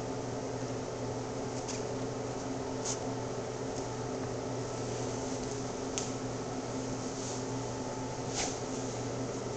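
A steady machine hum with hiss, like a fan or ventilation unit running. Over it come four faint, light taps, spread out, as shoes are handled and set down on a concrete floor.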